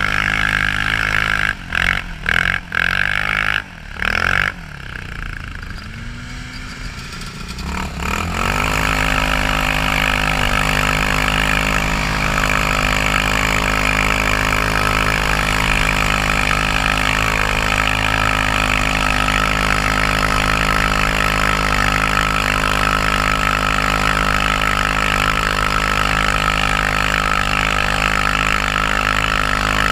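TGB Blade 550 ATV engine running while the quad rides over snow. The sound breaks up briefly and goes quieter for the first several seconds, then climbs back about eight seconds in to a steady, loud cruising note.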